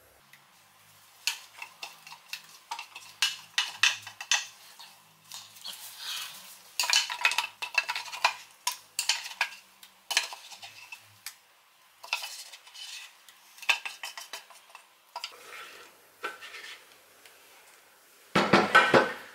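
Irregular clinks and scrapes of a utensil against a metal blender jug as thick fruit-and-onion puree is emptied out of it, with a louder scraping clatter near the end.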